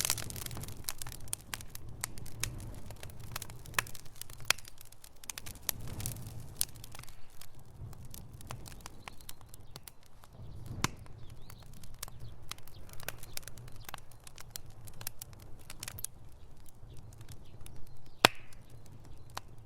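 Fire in a fireplace crackling, with many irregular sharp pops over a low steady rumble; one pop near the end is louder than the rest.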